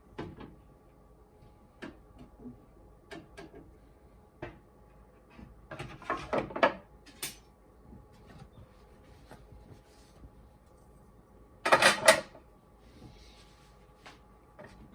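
Scattered clicks, knocks and clatters of espresso machine parts and accessories being handled and set down, with a louder clatter about twelve seconds in.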